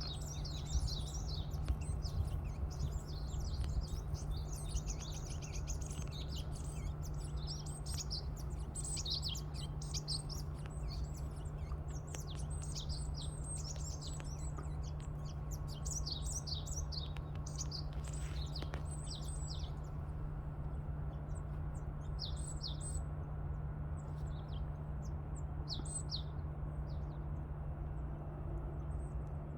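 Small songbirds chirping and twittering in quick, high, falling notes, many overlapping at first, then thinning to scattered calls for the last third. A steady low hum runs underneath.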